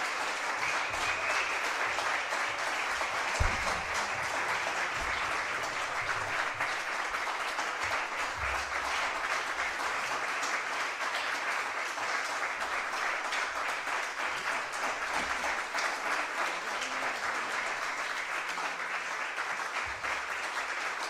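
Audience applauding steadily, with one low thump about three seconds in.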